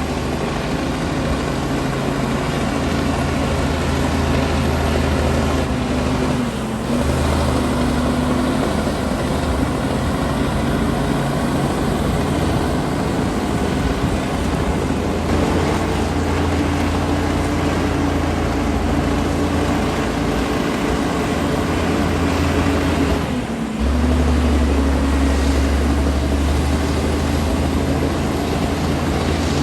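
Komatsu D60P bulldozer's diesel engine running steadily under load with a low drone. It dips briefly about 7 seconds in and again near 23 seconds, coming back stronger after the second dip.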